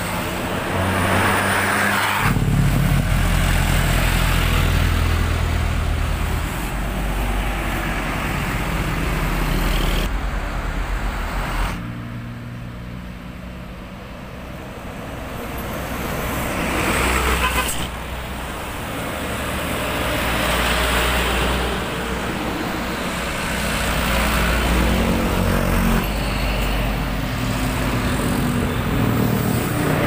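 Large diesel tour buses passing close by one after another, their engines running low under tyre and road noise, with other traffic behind; the sound swells and falls several times as each bus goes past.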